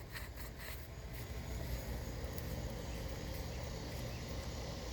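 Insects chirping faintly over a low, steady background noise.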